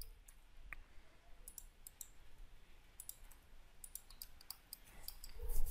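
Scattered light clicks of a computer mouse and keyboard, irregular and fairly faint, as vertices are selected and moved in Blender.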